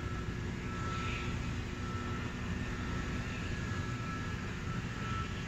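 A steady low rumble of outdoor noise, with short faint electronic beeps repeating about once every half second to second.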